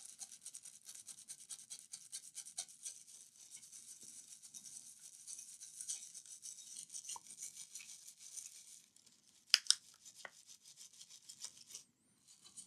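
Small stiff-bristled brush scrubbing a wet laptop motherboard chip with rapid back-and-forth strokes, a fine, scratchy bristle noise. It is cleaning sugary liquid-damage residue off with water. A few sharp clicks come about ten seconds in, and after them the scrubbing is fainter.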